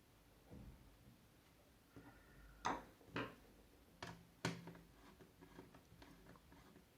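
Faint handling sounds of a mini PC's case cover being fitted back on: a soft thump, then four sharp clicks and knocks in quick succession about halfway through, followed by light, quick ticking.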